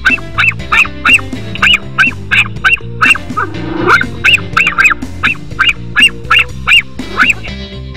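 A small dog yapping in a fast series of short, high-pitched barks, about three a second, stopping shortly before the end, over background music.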